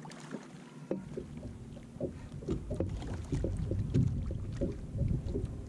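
A hooked channel catfish thrashing and splashing at the surface beside a small boat as it is brought in, with irregular splashes that get busier and louder about two seconds in.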